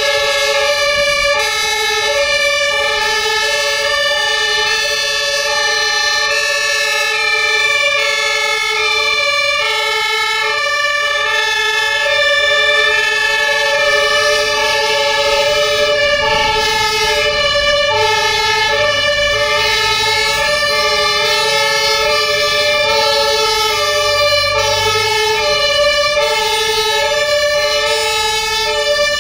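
Fire engine two-tone sirens (German Martinshorn) sounding steadily, the high and low notes alternating evenly, each lasting under a second.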